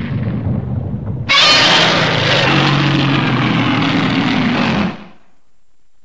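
1989 Heisei-era Godzilla roar sound effect: a low rumble for about a second, then one long, loud, screeching roar over a deep throaty base, cutting down to a faint fading tail near the end.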